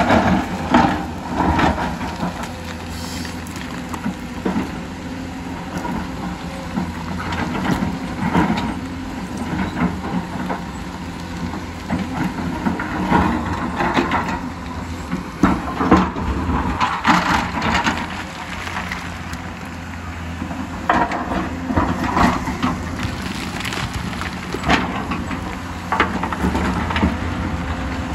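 Hyundai crawler excavator's diesel engine running steadily under load, with repeated scraping and knocks as the bucket digs into rocky soil and rocks clatter against the steel.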